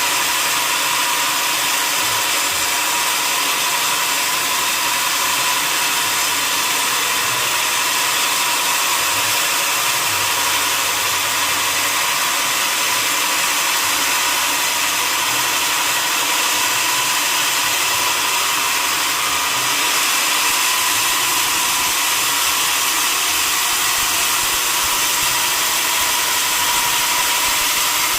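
Sawmill machinery running steadily: an even, high-pitched hiss with a constant whine and no breaks.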